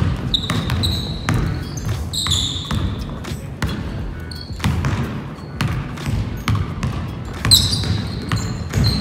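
A basketball being dribbled on a hardwood gym floor, bouncing in an uneven rhythm. Short, high sneaker squeaks on the floor come several times as players move, the loudest about three-quarters of the way through.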